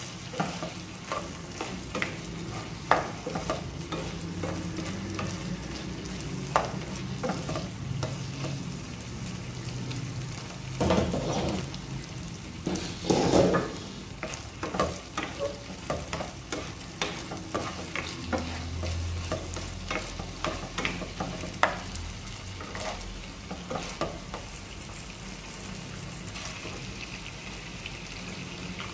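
Chicken pieces sizzling in oil in a nonstick frying pan, stirred with a spatula that clicks and scrapes against the pan, with a couple of louder scrapes near the middle.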